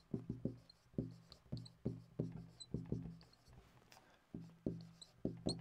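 Dry-erase marker writing on a whiteboard: a quick, irregular run of short taps and strokes, each with a low thud from the board.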